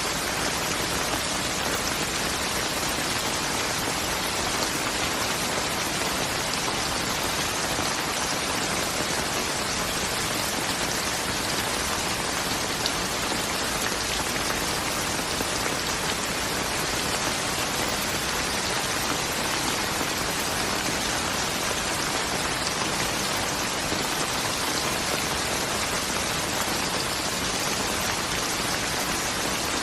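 Steady, dense rain falling, an even patter without pauses or changes.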